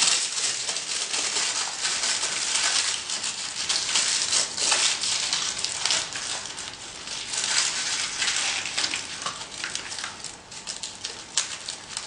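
Aluminium foil crinkling and crackling as it is handled and pressed into shape over a tube, with many sharp little crackles that thin out and grow quieter near the end.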